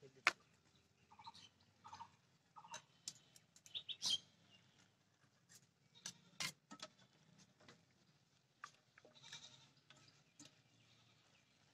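Scattered sharp metal clinks of a spoon and a perforated boondi ladle knocking against a steel wok and bowl while batter is dropped through the ladle into the frying oil. A few short goat bleats sound in the background in the first few seconds.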